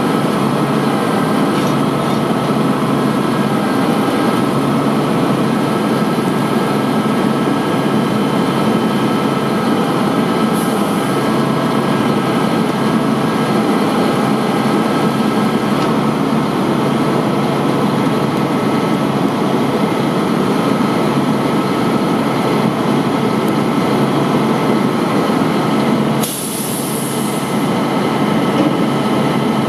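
Volvo WG64 crane truck's diesel engine running steadily, driving the hydraulics of its knuckle-boom crane as the boom and grapple move. A short hiss comes near the end.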